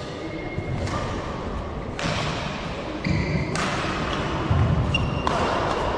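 Sounds of a badminton doubles game on an indoor court: a few sharp hits and thuds a second or so apart, with short high squeaky tones in between.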